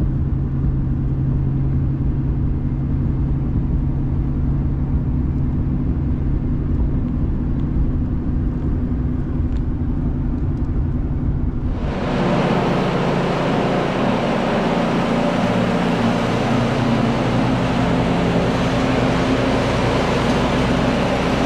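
Steady truck-cabin engine and road rumble while driving. About twelve seconds in it is cut off abruptly and replaced by a louder, hissier steady noise with a hum.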